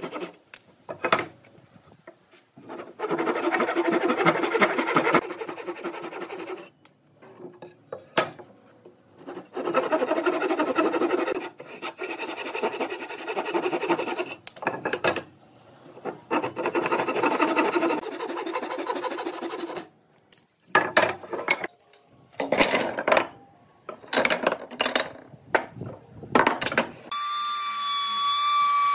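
Handsaw cutting through a stack of small wooden blocks, in runs of back-and-forth rasping strokes broken by short pauses. Near the end a compact electric trim router starts a steady high whine as it cuts along a wooden beam.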